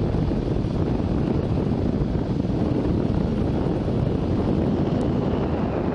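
Steady rush of wind on the microphone of a moving motorcycle, with engine and road noise underneath, while the Harley-Davidson Pan America 1250 Special is ridden at speed.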